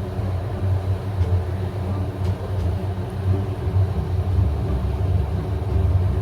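Steady low rumbling hum with no clear breaks.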